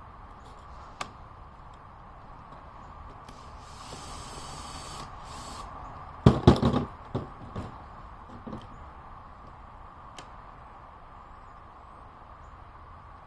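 A quick run of loud clacks and clatters a little past the middle, then a few fainter knocks, as hard parts or tools are handled and set down during the teardown of a handheld leaf blower. A brief hiss comes just before, over a steady faint hum.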